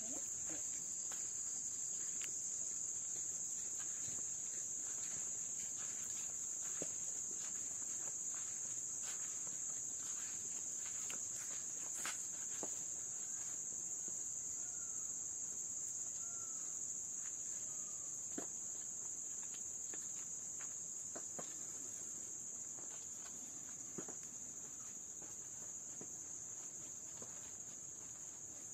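Insect chorus: a steady, high-pitched continuous trill, with faint scattered ticks and a few short chirps about halfway through.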